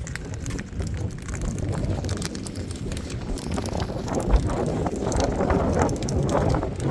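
Dog chewing a sock toy, giving a dense, irregular crackling like a fire, busier in the second half, over a low rumble.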